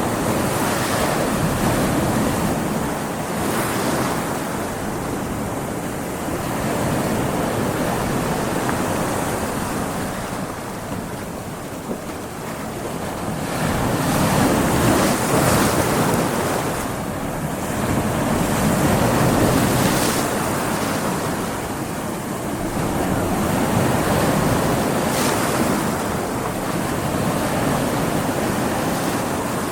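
Stormy sea: heavy waves surging and breaking in slow swells every few seconds, with wind rushing over the water.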